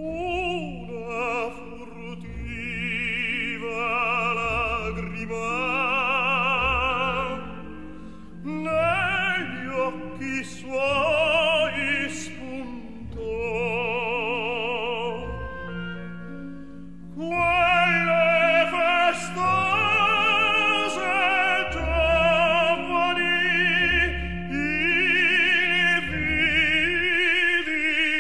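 Operatic singing with a wide vibrato over orchestral accompaniment, in long sung phrases separated by brief pauses, growing louder a little past halfway.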